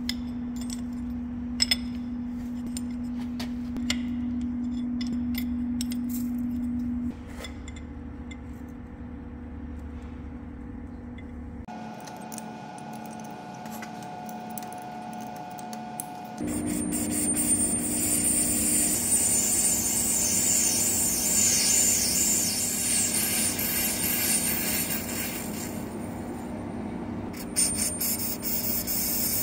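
Hafco centre lathe shop sounds in several cuts. First a steady hum with sharp metal clicks as the tool post is tightened with a spanner. From a little past halfway, a louder stretch with a strong high hiss as the turning tool works the end of the chrome-plated steel bar.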